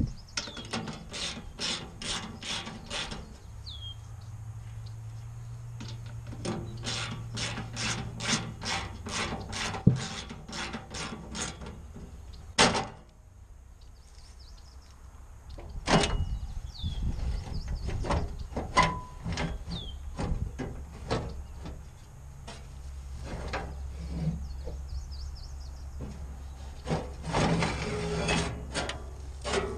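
Hand socket ratchet clicking in quick runs of about four or five clicks a second as bolts are loosened, with a few single sharp metal knocks in between. Wind rumbles on the microphone underneath.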